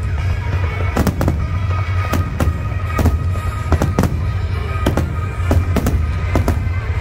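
Aerial fireworks bursting in a rapid, continuous series of bangs, about two a second, over a steady low rumble.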